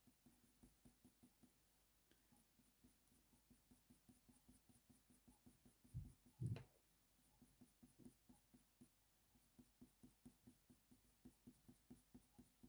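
Faint scratching of a Faber-Castell Polychromos coloured pencil making many short strokes on hot-press watercolour paper, with two soft low thumps about six seconds in.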